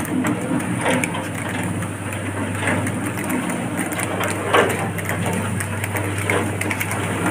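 Wire-mesh drum of a fryums roasting machine turning, the dry fryums tumbling and rattling against the mesh with a steady crackle over the machine's motor hum.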